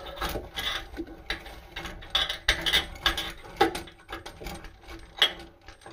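Irregular small clicks, taps and rattles of plumbing fittings being handled as a flexible tap hose is fitted by hand.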